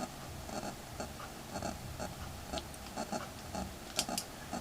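Faint, even ticking about three times a second, with two sharper small clicks about four seconds in.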